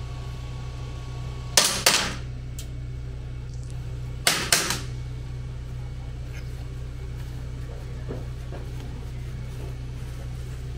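Pistol fired in two quick pairs of shots (double taps), the first pair about a second and a half in and the second about two and a half seconds later, over a steady low hum.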